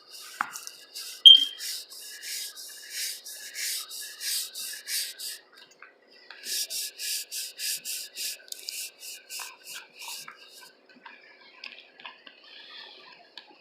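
Quick rubbing or scratching strokes, about three a second, in two runs with a pause of about a second between them. A sharp, short high squeak about a second in is the loudest sound, and faint scattered clicks follow near the end.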